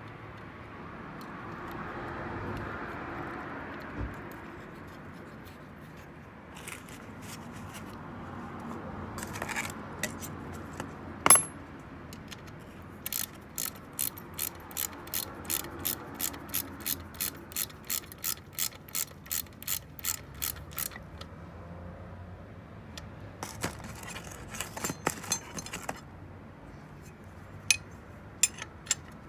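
Ratchet wrench clicking evenly, about three clicks a second for some eight seconds, as a bolt or nut on the transfer case is worked. Scattered metal clinks come before and after, with one sharp clank just before the ratcheting starts.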